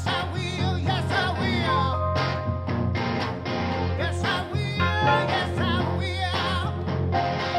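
Live band music: electric guitar and keyboard playing together over a steady bass, with wordless singing sliding and wavering above them.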